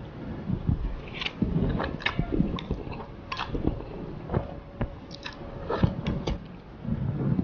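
A person eating instant black bean noodles (Nongshim jajangmyeon): wet chewing with irregular mouth clicks and smacks, as noodles are slurped in from the chopsticks.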